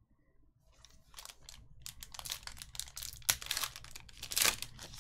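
A 2019 Panini Select football card pack's plastic wrapper crinkling and tearing as it is ripped open by hand. It starts about a second in as a dense run of rustles, with the loudest crackles toward the end.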